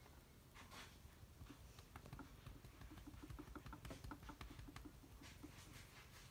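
Near silence with a faint run of soft ticks, about five a second, through the middle, and light rustling.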